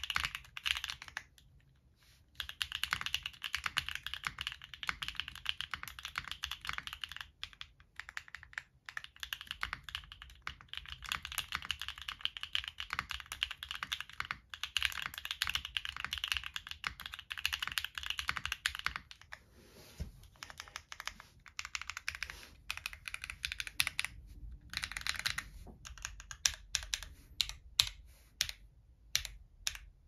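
Typing on a Tofu60 2.0 mechanical keyboard with Akko V3 Cream Pro switches, ABS keycaps and a carbon fibre plate, with no foam inside: a fast, loud clatter of keystrokes. It stops briefly about two seconds in, and near the end the strokes come as separate, spaced clicks.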